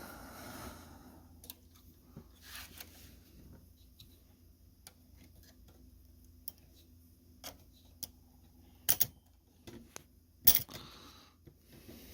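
Sparse small metallic clicks and taps from the mechanism of an antique Remington Portable typewriter being handled and worked, with louder clacks in the last third, a quick pair followed by a single one.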